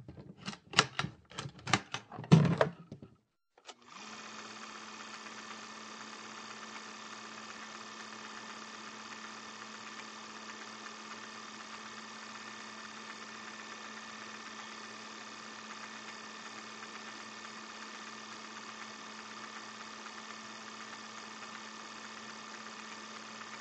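A quick run of about seven sharp clacks over the first three seconds. Then, after a brief pause, a steady, unchanging hum with a low tone and several higher ones.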